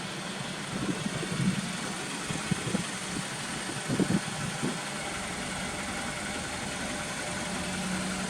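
Honda Integra Type S (DC5) 2.4-litre four-cylinder engine idling steadily through an aftermarket muffler, with a few uneven low thumps about a second in and around four seconds.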